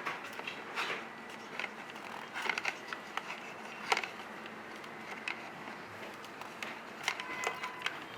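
Scattered light clicks and taps of small plastic parts and wire connectors being handled and plugged together while wiring up an RC tank's chassis.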